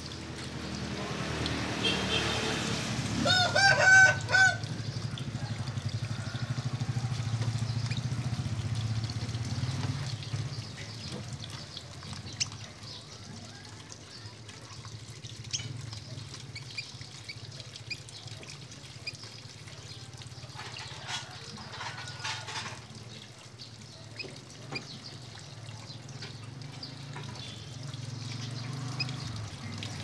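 A quick run of about five short pitched clucking calls from domestic fowl about three seconds in, the loudest sound, with a few fainter calls later. A steady low hum runs underneath throughout.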